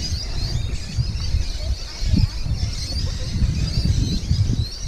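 Wind buffeting the microphone in an uneven low rumble, with small birds chirping high in the background.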